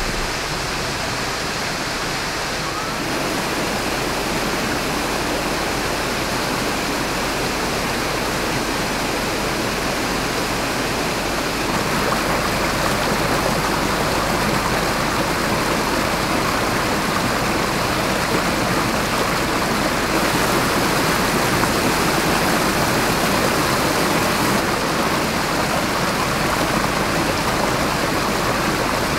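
A small mountain creek cascading over boulders: a steady rush of water, which gets louder about twelve seconds in.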